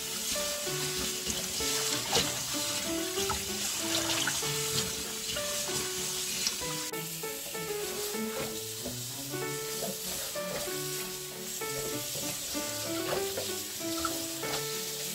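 Tap water running and splashing into a steel bowl as garlic chives are swished and rinsed by hand, under background music with a melody of short notes.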